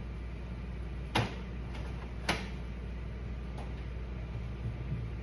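Two sharp clicks about a second apart, then a fainter third, over a steady low hum.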